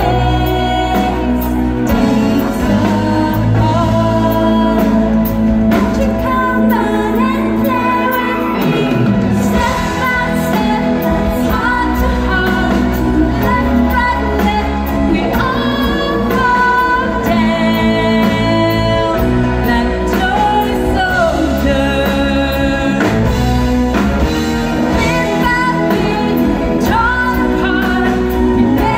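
A woman singing a pop song live into a microphone over amplified band music, steady and continuous.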